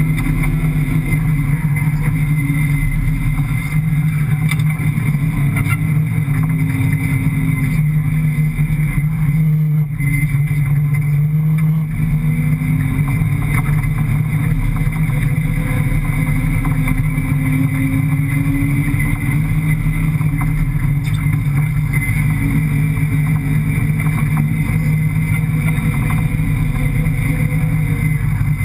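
The rally car's 5.7-litre Hemi V8 running hard across sand, heard from inside the cabin. The revs waver up and down, easing briefly about ten seconds in and climbing again a couple of seconds later.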